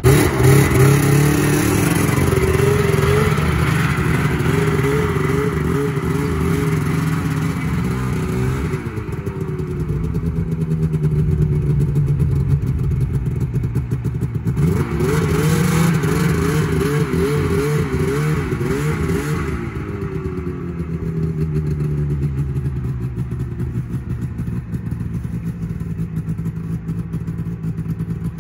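Vehicle engine running and being revved in short rising-and-falling surges, in two spells with steadier running between and after, as the vehicle is manoeuvred back and forth.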